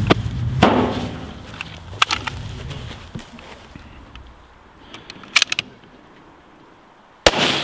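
A shooter moves to a steel drum and sets a bag on it, with footsteps and knocks, then a few small clicks of rifle handling. One loud bolt-action rifle shot comes near the end.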